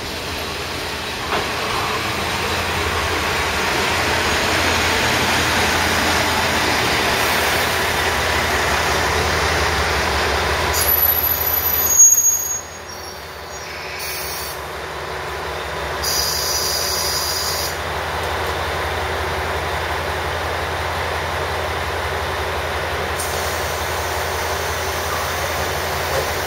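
Electric commuter train pulling into a station platform, its running noise building steadily, then brakes and wheels squealing as it comes to a stop about twelve seconds in. After that it stands at the platform with a steady low hum.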